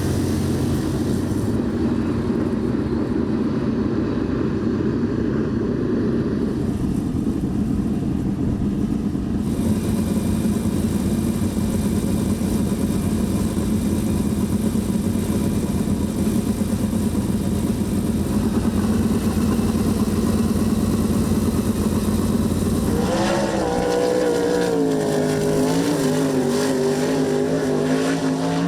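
Sprintcar V8 engines running on a dirt oval, a steady low drone for most of the stretch. From about 23 seconds in, one car's engine note comes through clearly, rising and falling as the throttle goes on and off through the corners.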